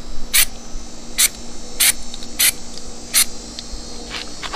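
Aerosol bedliner spray can hissing in short bursts as the coating is sprayed onto a wheel rim: five quick sprays about two-thirds of a second apart, then two fainter ones near the end.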